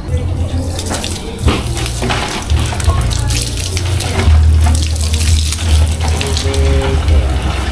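Water from a garden hose pouring into a plastic gallon jug as it fills, with a steady low hum underneath.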